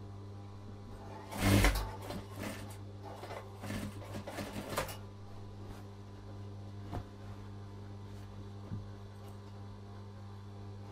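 Fabric rustling and sliding as the layers of a pillow cover are handled and lined up at an industrial sewing machine, over a steady low hum. The loudest rustle comes about a second and a half in, with a few more over the next few seconds and a couple of faint ticks later.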